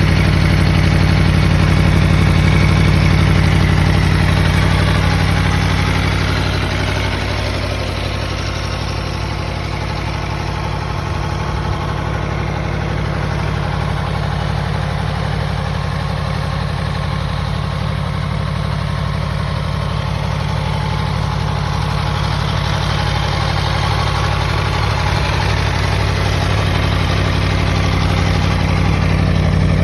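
2021 Aprilia Tuono V4's V4 engine idling steadily through its factory stock exhaust. It is a little quieter from about seven seconds in and louder again near the end.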